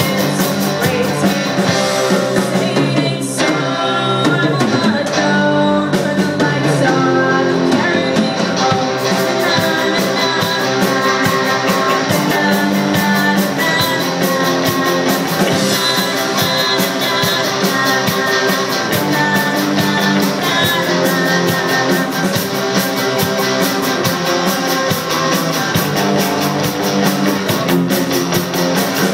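A live rock band playing electric guitars and a drum kit, with a lead vocalist singing over them.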